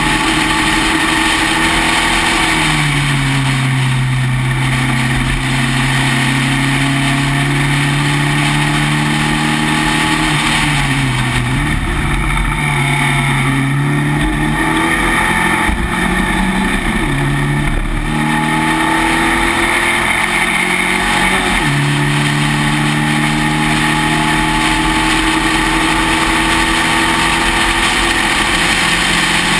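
Spec Racer Ford's engine heard from its open cockpit, running hard at racing speed. The note drops sharply at gear changes about two seconds in and again near the end, dips and climbs back through the corners, then rises steadily as the car accelerates. A steady rush of wind and road noise lies under it.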